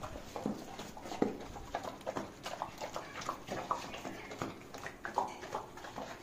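Two Doberman dogs eating rice mixed with egg from hand-held steel bowls: quick, irregular smacking and chewing sounds.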